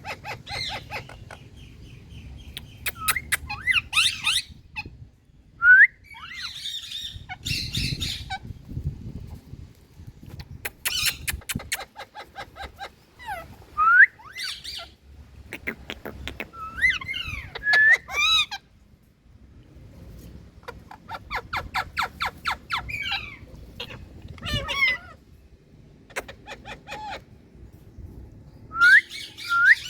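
Indian ringneck parakeets calling: sharp rising squawks and rapid chattering runs of short repeated notes, coming in bursts with short pauses between them.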